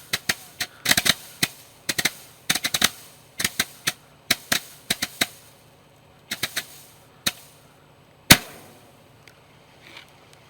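A string of about a hundred small firecrackers going off in quick, irregular clusters of sharp pops. They thin out after about five seconds, and one loud single bang comes near the end, followed by a few faint pops.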